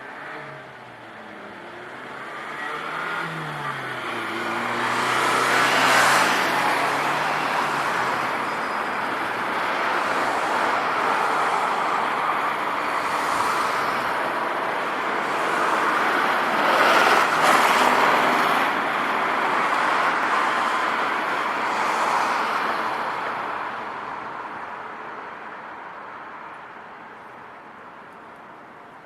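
A Hankai Tramway tram passing over the level crossing. It approaches with a rising motor hum and runs past loudly for about fifteen seconds. A few sharp clacks come from the passage, and then it fades away.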